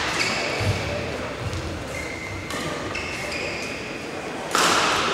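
Badminton rally on an indoor court: shoes squeak sharply several times and feet thud on the court, with one loud hit near the end.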